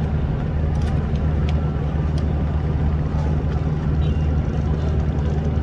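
Large passenger ship's diesel engines running with a steady low drone, a few faint clicks over it.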